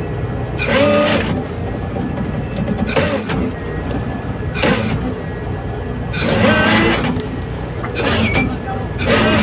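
A fishing boat's machinery drones steadily while crew members give about six short shouted calls, the loudest about a second in and near the end, as the brailer net of fish is hoisted and emptied into the hold.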